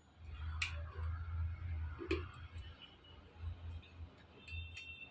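Light plastic clicks and rubbing as a GoPro camera is handled and fitted into its plastic mount, with a few separate clicks and a low, uneven rumble of handling.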